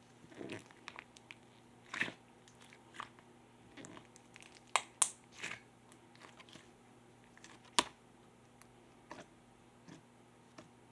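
Purple pearl slime being handled, giving scattered soft pops and crackles at an irregular pace. The sharpest pops come about five seconds in and again near eight seconds.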